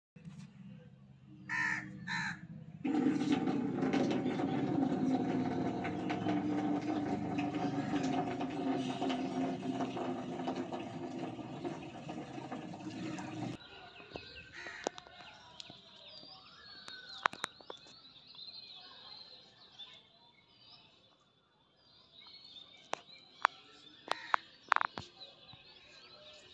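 Outdoor ambience with two harsh bird calls near the start. Then comes a loud, steady droning noise for about ten seconds that cuts off suddenly. After that, small birds chirp quietly and there are a few sharp clicks.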